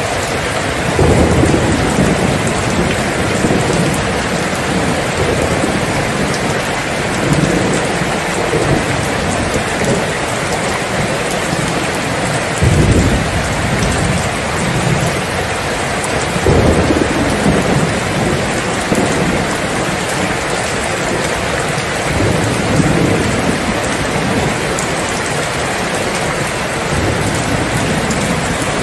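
Steady rain with low rolling thunder rumbling underneath, the loudest rumbles about thirteen and seventeen seconds in.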